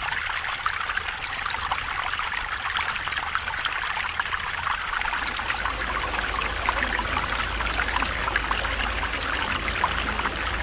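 Shallow stream running over stones: a steady trickling and rippling of water. A low rumble joins about halfway through.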